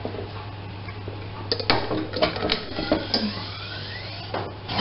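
Hand-held plunger-type drain pump worked over a bath plughole: a run of clicks and knocks with short squeaky sliding sounds as the pump's plunger rod is drawn up, over a steady low hum.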